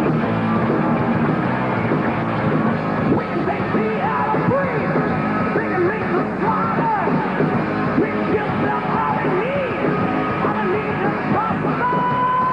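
Live rock band playing loudly: a lead line swooping up and down in pitch over the band, then one long high note held and slowly rising near the end.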